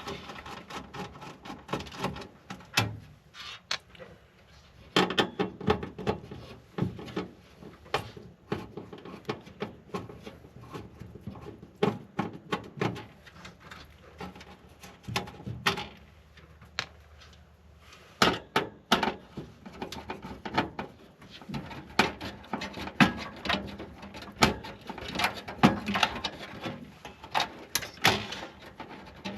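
Irregular clicks, taps and scrapes of a screwdriver and loose parts on a desktop PC case as its motherboard screws are worked out. The clicks come in dense clusters with short quieter spells between.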